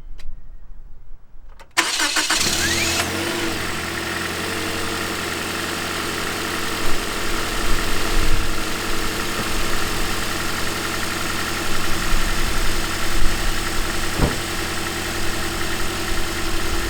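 2010 Toyota Corolla engine being started: near quiet, then cranking and catching within about a second about two seconds in, rising in speed, then idling steadily. One short click about fourteen seconds in.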